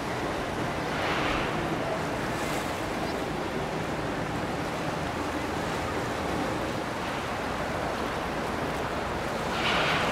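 Water washing and splashing in a boat wake, with wind on the microphone. A louder surge of water comes near the end.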